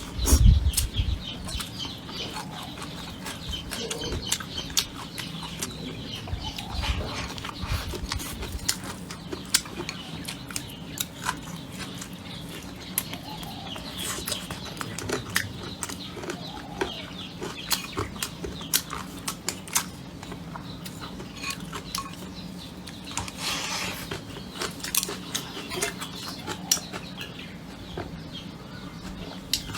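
Chickens clucking, with many scattered sharp clicks and taps throughout and a few low thumps at the very start.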